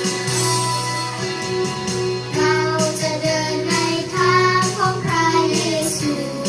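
Christian worship song: a guitar-backed instrumental intro, with singing voices coming in after about two seconds.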